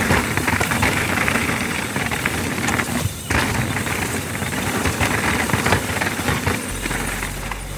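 Small petrol engine of a vibrating plate compactor running, with rapid, chattering knocks, mixed with the rattle and rush of a mountain bike on the trail. A steady low hum comes in near the end.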